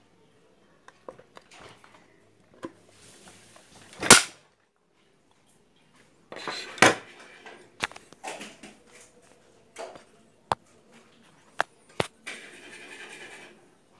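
Handling noise around an industrial flatlock sewing machine that is not running: scattered clicks and knocks, the loudest a single sharp knock about four seconds in, a rustling clatter a couple of seconds later, and a short hiss near the end.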